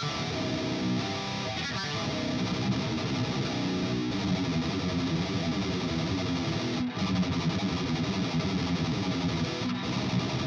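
Distorted electric guitar played continuously, through an ENGL E530 preamp into 4x12 Vintage 30 speaker-cabinet impulse responses.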